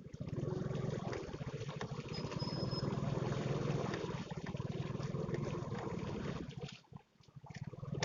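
Motorcycle engine running with a fast, even beat under a noisy haze, dipping away briefly about seven seconds in before picking up again.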